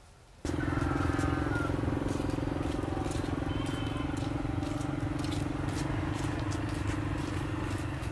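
A small engine running steadily, cutting in abruptly about half a second in.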